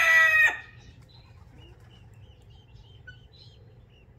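The end of a rooster's crow, a loud drawn-out call that cuts off about half a second in. It is followed by faint, short, high peeping chirps.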